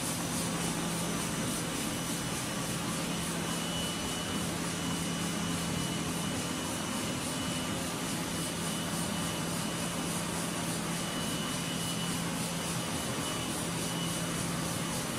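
Interfold dispenser napkin machine with laminating unit running: a steady mechanical rush with a constant low drone and a faint high whine.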